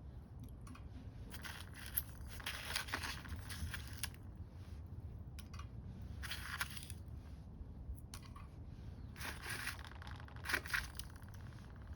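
Small wood-gas camp stove burning wood with secondary combustion: a steady low rumble of the fire, irregular hissing flare-ups and occasional sharp crackles, two of them close together near the end.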